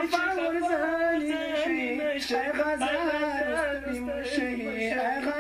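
A solo voice singing a slow melody of long, wavering notes, with no instruments.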